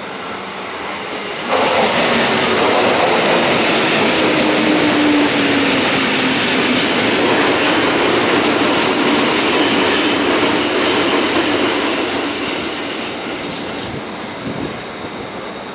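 JR 205-series electric multiple unit pulling into a station under braking, passing close by with loud wheel-and-rail noise. A low tone falls in pitch during the first few seconds. The noise fades near the end as the train slows almost to a stop, with a few sharp clicks.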